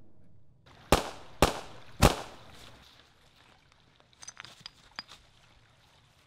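Scoped rifle fired three times, the shots about half a second apart, each a sharp crack with a short echoing tail. A few faint light clicks follow a couple of seconds later.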